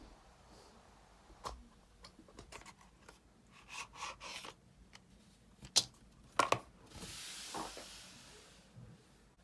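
Packaging of Apple Pencil replacement tips being handled and opened: scattered clicks and taps, two sharp clicks about six and a half seconds in, then a tearing sound lasting about a second and a half.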